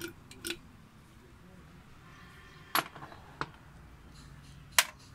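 Small metal diesel injection pump parts clinking and tapping against each other and the bench as they are handled, five short sharp clinks with the loudest near the end.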